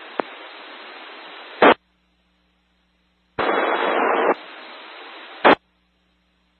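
FM radio static hiss from an open, signal-less channel on a ham radio repeater, ending twice in a short sharp squelch-tail burst followed by dead silence. A louder burst of hiss about three and a half seconds in sounds like a weak, noisy transmission keying up briefly.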